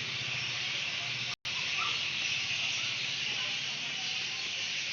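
A dense chorus of many birds calling at once, blending into a steady high hiss-like din with a few separate chirps standing out. The sound drops out completely for a split second about a second and a half in.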